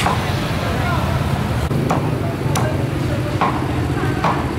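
Busy street-market ambience: a steady background hubbub with a low hum, broken by a few short sharp knocks or clatters about a second apart.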